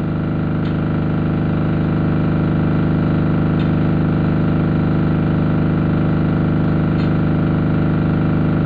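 An engine idling steadily: a deep, even hum with a fine low pulse underneath, swelling up over the first second.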